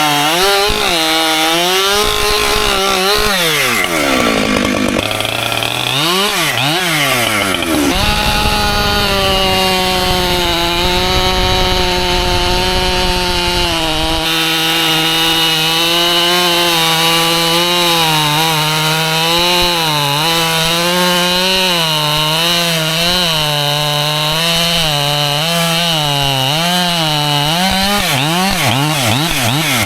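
Husqvarna two-stroke chainsaw cutting white oak logs: the engine runs at high revs with its pitch wavering as the chain bites. A few seconds in, the revs drop and swoop up and down, then hold steady through a long cut.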